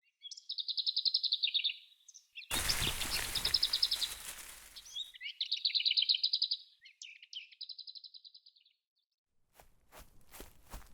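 A bird singing short, fast-trilled phrases, four in all, each about a second long. A rushing noise swells in under the second phrase and fades over about two seconds. Near the end a run of short knocks begins.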